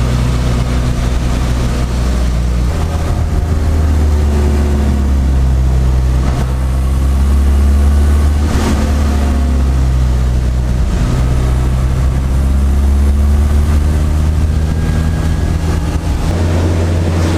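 Honda Integra DC2's engine running hard in third gear, heard from inside the cabin, with its low steady note shifting a couple of times, over a constant hiss of tyres on a rain-soaked road.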